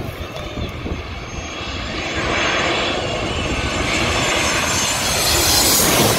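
Boeing 737 MAX jet engines on final approach, growing steadily louder as the airliner passes low overhead, with a rushing, hissing noise that peaks just before the end.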